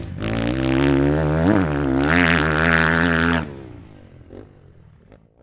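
Channel-intro logo sting: a loud, wavering engine-like drone, like a motorcycle revving, with a glitchy hiss over it. It cuts off abruptly about three and a half seconds in, leaving a fading tail with a few faint ticks.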